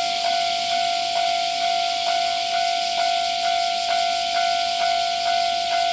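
Japanese railway level crossing warning bell ringing: a steady ringing tone pulsed about twice a second in an even repeating clang. A steady high hiss runs underneath.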